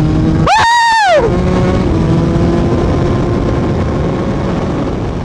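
Yamaha MT-09's three-cylinder engine with an Akrapovic full-system exhaust running steadily, easing down slightly near the end. About half a second in, a brief high pitched sound rises and then falls away.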